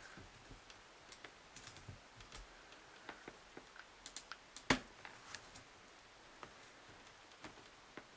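Light plastic clicks and taps from gloved fingers unclipping connectors and ribbon cables on an opened laptop's mainboard, scattered and irregular, with one sharper click a little before the five-second mark.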